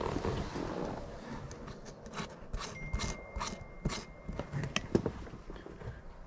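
A run of small, irregular clicks and taps, with a faint thin steady tone for about a second and a half in the middle.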